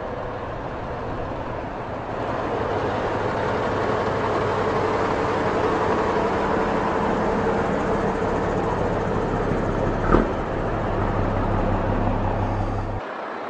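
Army buses and military trucks in a convoy driving past close by, their engines running with a steady low drone that grows louder about two seconds in as a vehicle draws level. A single sharp knock comes about ten seconds in, and the low drone stops abruptly near the end.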